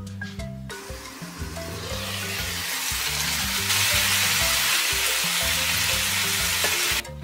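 Beef liver cubes and peppers sizzling in a frying pan, the sizzle swelling in about a second in and cutting off abruptly near the end. Background music with a steady bass line plays underneath.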